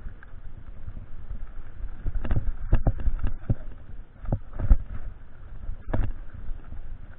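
Mountain bike ridden over rough ground: a low rumble of tyres and wind with sharp clacks and rattles as the bike hits bumps, in clusters about two seconds in, around four and a half seconds, and again about six seconds in.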